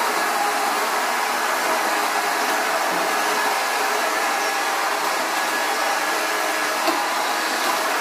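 Upright vacuum cleaner running steadily over a hard floor, an even motor and airflow noise with a faint steady tone in it. A single brief click about seven seconds in.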